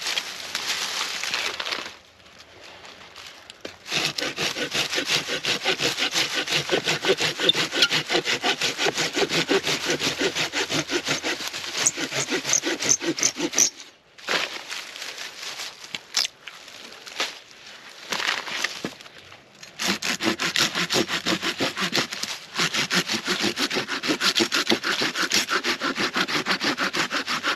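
Small hand saw cutting through a wooden branch with quick, even back-and-forth strokes, in two long runs with a pause in between.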